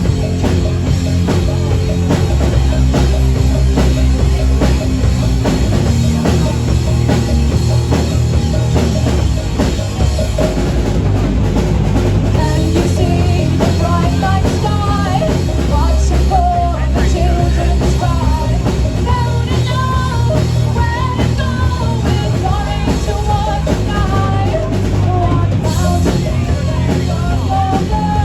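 Live rock band playing loud: drum kit, bass and electric guitar. About halfway through, a wavering higher melody line comes in over them.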